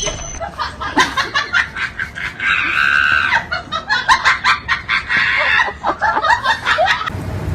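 Animal calls: a quick series of short sharp notes, with a longer higher call about two and a half to three seconds in, and more quick notes after it until near the end.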